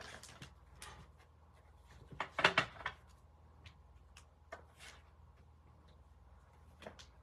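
Small handling noises from things being moved about on a desk: scattered light clicks and knocks, with a louder cluster of rustling knocks about two and a half seconds in.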